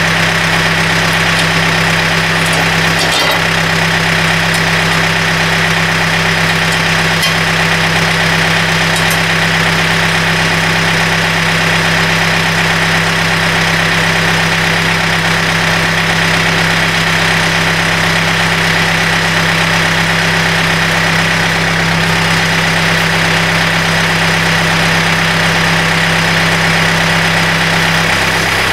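John Deere 110 TLB tractor loader backhoe's diesel engine running at a steady idle, warming up before an oil change.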